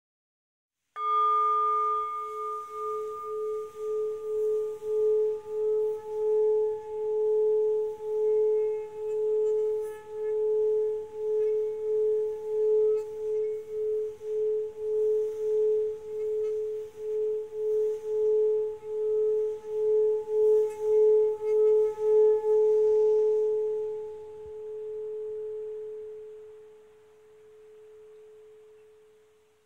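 Singing bowl struck once, then sung by running a mallet around its rim: a steady low ringing tone that pulses about twice a second. Near the end the rubbing stops and the tone fades away slowly.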